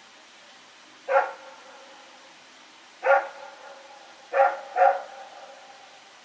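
Belgian Malinois barking: four single barks a second or two apart, the last two in quick succession, each ringing on briefly with an echo.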